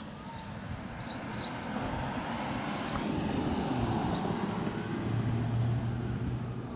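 A vehicle passing by, its noise swelling over a few seconds to a low steady hum, then easing off near the end, with a few faint bird chirps.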